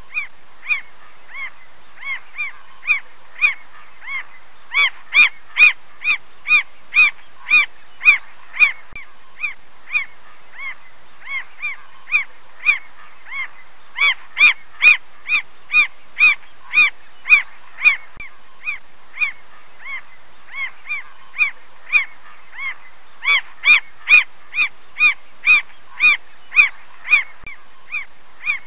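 Mockingbird calling: one short call that rises and falls in pitch, repeated evenly about twice a second. The calls grow louder and fade back in three waves.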